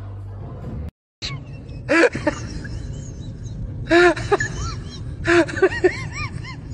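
Music with a steady low hum for the first second, cut off by a brief silence. Then come short vocal cries, each rising and falling in pitch: one, then another, then several in quick succession near the end.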